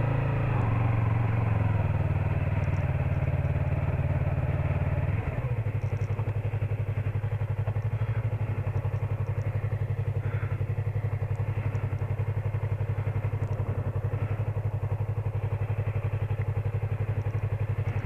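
Yamaha MT-03 motorcycle's parallel-twin engine running at low revs as the bike moves slowly; its note drops and settles into a steady, even pulse about five seconds in.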